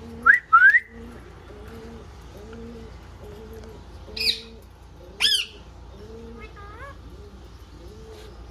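Green pet parrot calling: two short rising whistles at the start, two louder shrill calls around the middle, and a faint warble near the end. Under them runs a low sound repeating about twice a second.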